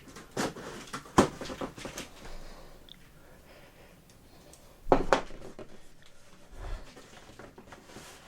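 Box and packaging being handled during unboxing: a few sharp knocks and clatters, the loudest about a second in and again about five seconds in, with quieter rustling and shuffling between them.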